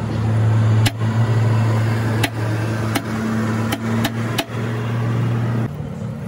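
About six sharp metal knocks from a hammer striking a chisel set against a truck front wheel hub's lock nut, over a steady low machine hum that cuts off near the end.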